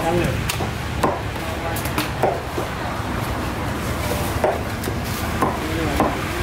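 A large knife chopping through pomfret and striking a wooden chopping block: several sharp, irregularly spaced chops over a steady low background hum.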